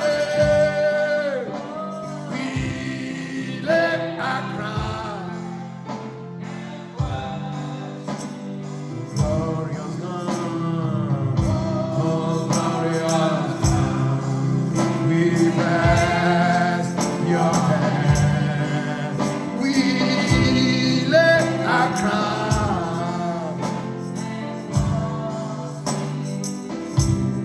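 Gospel worship music: singing over a band with steady bass and a regular beat.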